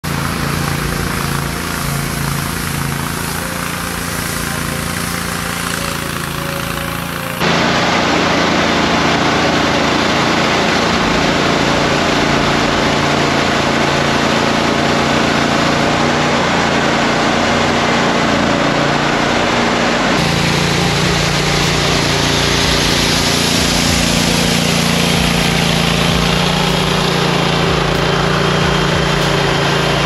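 Toro Multi-Force tool carrier's engine running steadily while its power broom spins, sweeping icy snow off pavement: a steady engine hum under a dense rushing brush noise. The sound jumps abruptly louder about seven seconds in and changes tone again about twenty seconds in.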